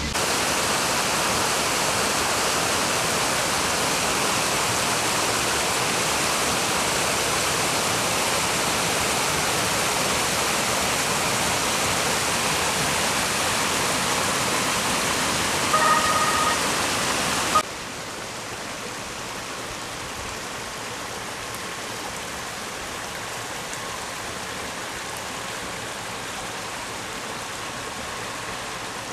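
Floodwater rushing in a steady, loud roar. About 16 seconds in, a brief high-pitched tone sounds over it. Then the rush drops suddenly to a quieter level.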